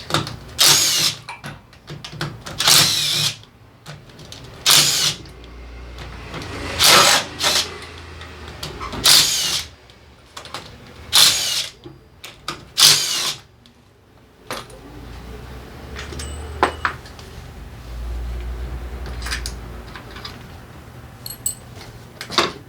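Power driver running in seven short bursts about two seconds apart, spinning out the crankcase cover bolts one after another; after about 14 seconds only light clicks and clinks of tools and parts being handled.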